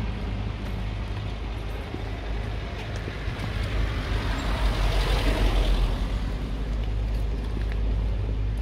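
A road vehicle driving past, its noise swelling to a peak about five seconds in and then fading away.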